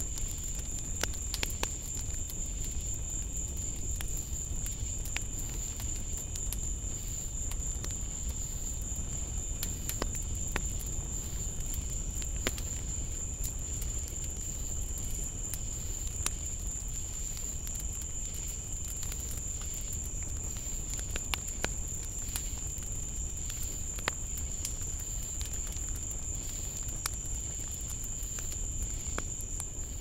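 Night insects, crickets or katydids, calling in a steady high-pitched unbroken chorus, with a fainter lower trill beneath it. Scattered short clicks and a low steady rumble run underneath.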